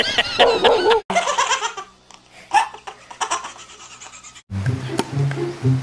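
Laughter, broken off by hard edits, then music with steady low notes begins about four and a half seconds in.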